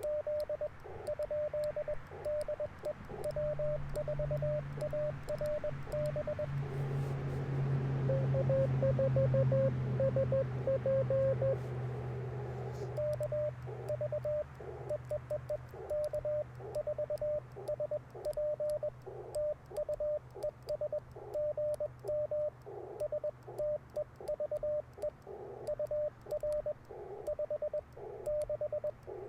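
Morse code from an Icom IC-705 transceiver: dits and dahs keyed as a beeping tone of about 600 Hz, with a slightly lower-pitched station's code for a few seconds in the middle and receiver hiss between the characters. A low hum swells a few seconds in and fades after the middle.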